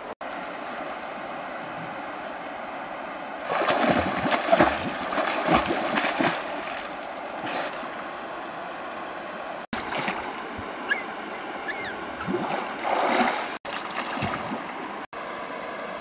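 Water splashing and sloshing as a person swims and dives in a pond, in two spells of louder, irregular splashing, about four seconds in and again near the end, over a steady rushing hiss of water.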